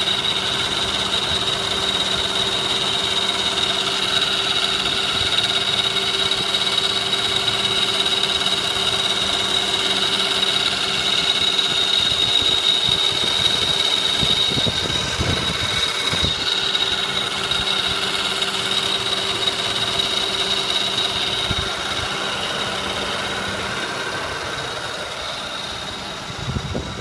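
2005 Lexus ES 330's 3.3-litre V6 idling with a steady high-pitched whine over the engine note, strongest about halfway through; the owner calls it a timing belt noise.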